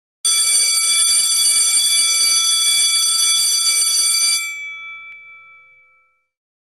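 Electronic intro sound effect for an animated logo: a high, steady tone over a hiss. It starts suddenly, holds for about four seconds, then rings away and fades out over about a second and a half.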